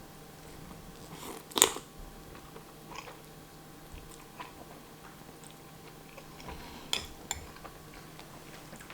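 A person eating spicy instant noodles: one loud bite about a second and a half in, then soft chewing with a few small mouth clicks.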